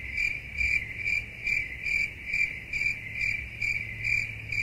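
Chirping-cricket sound effect: a steady high-pitched trill that pulses about twice a second, over a faint low hum.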